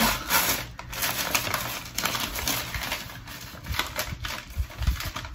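Scissors snipping through stiff packing paper, with the paper rustling and crinkling as it is pulled open in irregular bursts.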